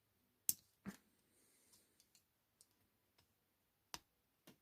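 A few sharp metallic clicks from the folding tools of a Leatherman Wave Plus multitool being handled: two close together about half a second in, and two more near the end, with near silence between.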